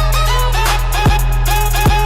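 Music with a beat: a held deep bass, a short repeating melody, quick high ticking strokes and deep drum hits that drop in pitch.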